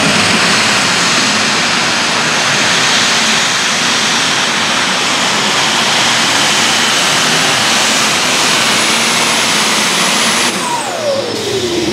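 International Harvester light super stock pulling tractor's turbocharged engine running flat out under load as it drags the sled, loud, with a steady high turbo whine over it. About ten and a half seconds in the pull ends and the engine's pitch falls as it comes off throttle.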